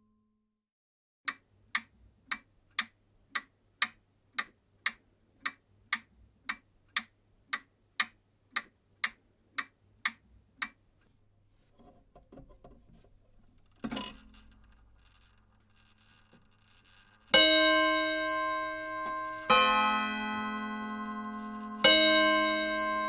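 Old mechanical clock ticking about twice a second, then its striking mechanism whirs and clicks as it releases. The clock gong then strikes three times, about two seconds apart, each stroke ringing on.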